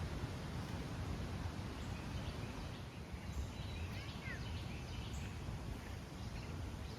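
Woodland ambience: a steady low background hum and hiss, with a few faint, short bird chirps about three to five seconds in.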